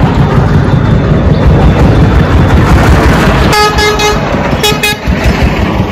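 Busy road traffic with a loud, steady engine rumble, and a vehicle horn sounding: one blast about three and a half seconds in, then two short toots about a second later.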